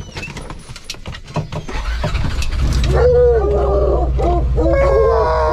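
Treeing walker coonhounds bawling in long, drawn-out notes that bend and fall in pitch, several dogs at once, starting about three seconds in, after a few seconds of clicking and rattling. A steady low engine hum runs underneath from about two seconds in.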